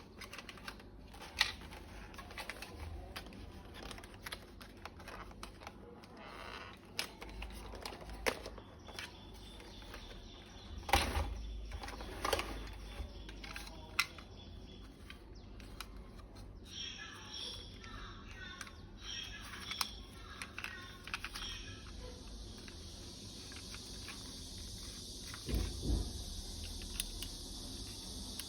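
Irregular clicks, taps and rattles of plastic toy-gun parts and packaging being handled, with a few heavier knocks. A steady high hiss comes in for the last several seconds.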